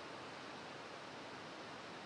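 Low, steady hiss of outdoor background noise, even throughout with no distinct events.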